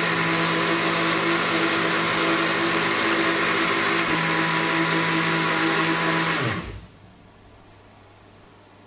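Electric countertop blender running at a steady speed, blending a thin liquid leche flan custard mix, then switched off about six and a half seconds in, its motor winding down quickly to silence.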